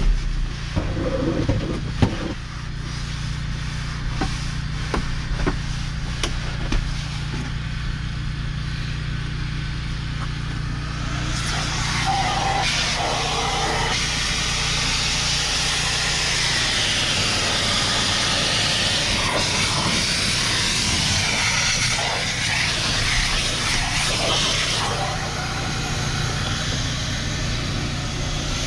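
Steady low machine hum, with sharp knocks and scrapes from work on the ribbed cab floor in the first few seconds. From about 11 to 25 seconds a loud rushing hiss joins the hum.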